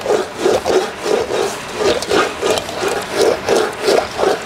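Sheet metal panel being rolled back and forth through an English wheel, a rhythmic rolling rub about three strokes a second, as the panel is stretched and planished into a dome shape.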